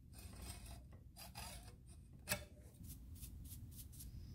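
Faint, irregular scraping strokes of hand-tool work on a small aluminium block held in a bench vise, with one slightly louder stroke a little past halfway.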